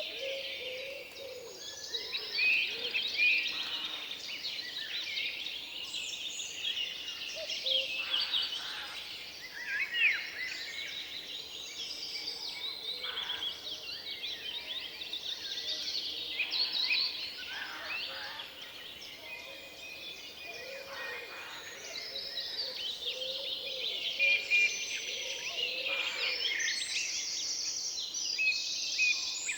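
Forest ambience: several songbirds singing and calling at once, their chirps and warbles overlapping throughout, over a faint steady rustle of wind in the treetops.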